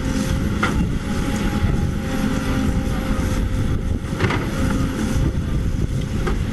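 CAT 320D excavator's diesel engine running under digging load, with a steady whine over the rumble. Three short knocks come as the bucket works the rocky soil.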